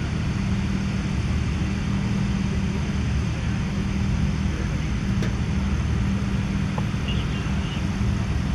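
Steady low mechanical drone, like an engine running, holding at a constant level, with a faint click about five seconds in.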